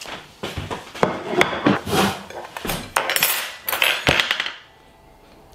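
Kitchen clatter: irregular knocks, clinks and scrapes of cutlery, a plate and jars being handled, dying away about four seconds in.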